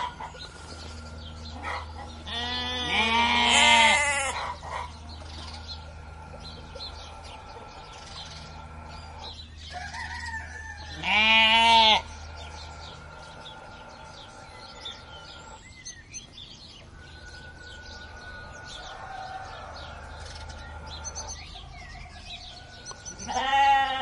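Sheep bleating three times, each a wavering call of about a second or two: one a few seconds in, one about halfway, one near the end.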